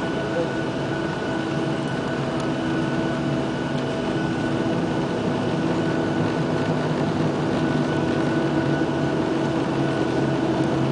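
Cabin noise of a Boeing 737-800's CFM56 jet engines running at low power as the airliner taxis, heard from a window seat beside the wing: a steady rumble with several steady whining tones over it, growing slightly louder in the second half.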